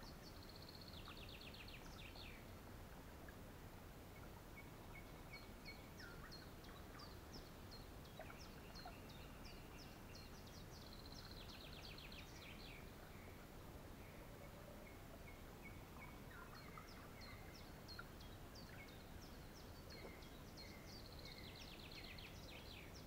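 Faint songbirds singing: a falling trill repeats about every ten seconds, with short chirps in between, over a low background hiss.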